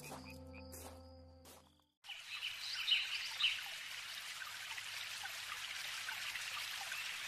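Fading music with frog croaks cuts to a brief silence about two seconds in. Then birds chirp over a steady hiss like running water, a nature-sound ambience.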